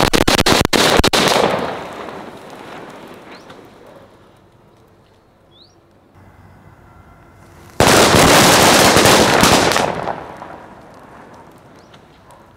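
A big bundle of paper firecrackers going off all at once: a dense barrage of rapid bangs for about two seconds that trails off into scattered crackling. A second dense burst starts suddenly about eight seconds in and fades out the same way.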